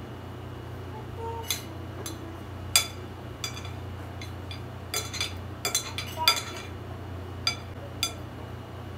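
Metal spoon clinking and scraping against a ceramic bowl in a string of sharp, irregular taps, bunched most thickly in the middle, over a steady low hum.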